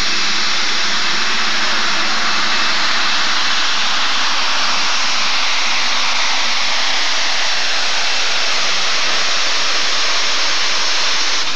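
Super stock pulling tractor's engine running flat out under load as it drags the sled down the track: a loud, steady, unbroken roar.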